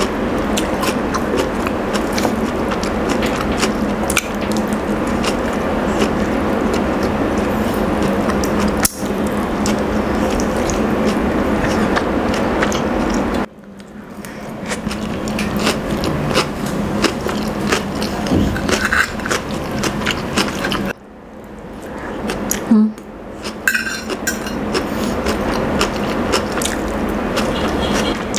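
Close-up eating sounds of a person chewing roast chicken and salad, with many small crunches and mouth clicks. The sound drops out abruptly twice and then builds back.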